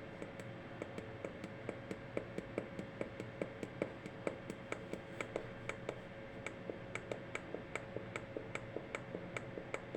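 Quick, regular run of button clicks on a handheld Simplex fire alarm loop tester, about three a second, as it steps from one device address to the next. A faint steady hum sits underneath.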